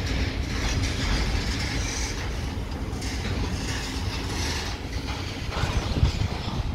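Container freight train wagons rolling past, their wheels on the rails making a steady rumble.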